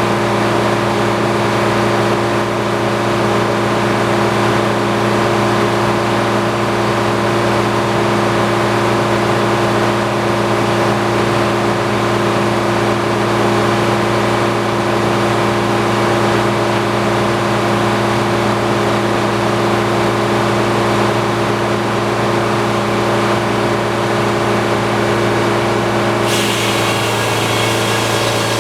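Antique circular sawmill running steadily, its engine and spinning saw blade giving an even, loud drone. Near the end a higher hissing layer comes in and the tone shifts slightly.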